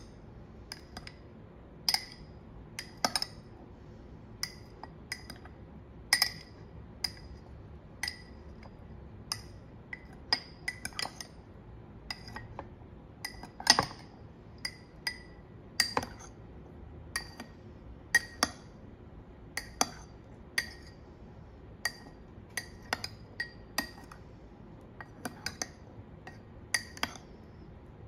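Metal spoon clinking against white ceramic cups while stirring natto starter into cooked soybeans. The clinks are sharp and irregular, about one or two a second, each with a brief ring.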